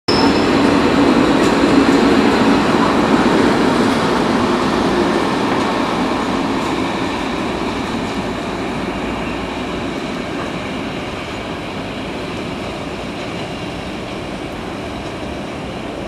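Freight train of container wagons rolling past on the tracks: a steady, continuous running noise, loudest at first and slowly fading as the train moves away.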